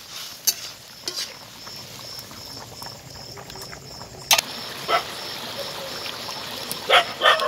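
A kadai of curry bubbling at a simmer over a wood fire, with a few sharp clicks and crackles scattered through it, two close together near the end.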